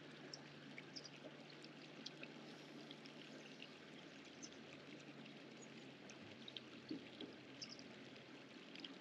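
Near silence, with a faint steady trickle of running water and a few scattered faint ticks.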